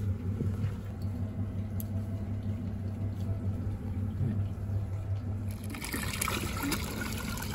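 A steady low hum, then, about five and a half seconds in, a rush of splashing water as a clear plastic container of seawater and small live fish is tipped out into the sea.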